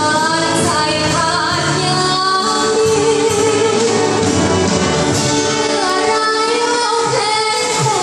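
Live Thai luk thung band playing a song, with a girl singing the melody over the band.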